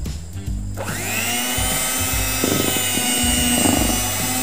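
Electric hand mixer switched on about a second in, its motor whine rising as it spins up, then running steadily as the beaters whip egg whites in a stainless steel bowl.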